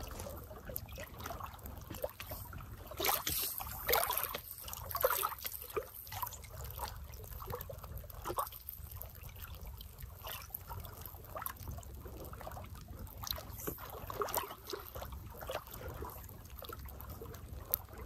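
Small waves lapping and trickling on a sandy, pebbly lake shore, with many irregular small splashes over a low steady rumble.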